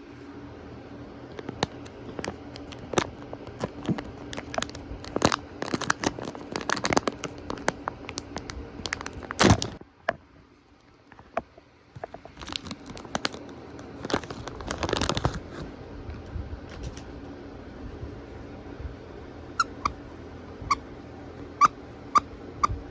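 Hands crinkling and tearing open a plastic toy blind bag, with a loud rip of packaging about halfway, a short pause, more crinkling, then a few light plastic clicks near the end.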